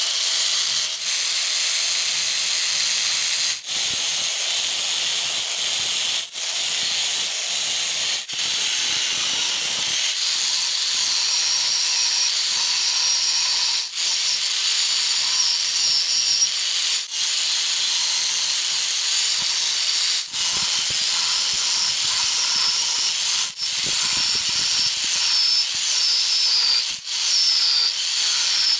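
Angle grinder running with its disc ground against a spring-steel knife blank, a steady high grinding hiss. The sound dips briefly every few seconds as the disc is eased off and pressed back onto the steel.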